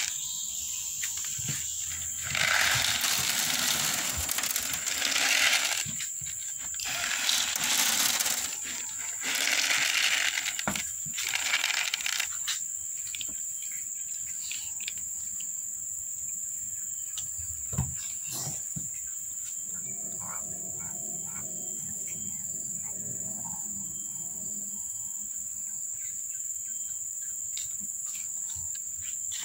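Cats chewing dry kibble, small crunches and clicks. A steady high-pitched whine runs underneath, and several loud rushes of noise come in the first ten seconds or so.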